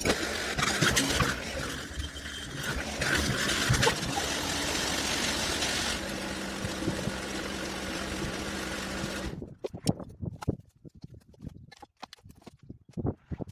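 Bulldozer engine running steadily, then cutting off abruptly about nine seconds in, followed by a few scattered clicks and knocks.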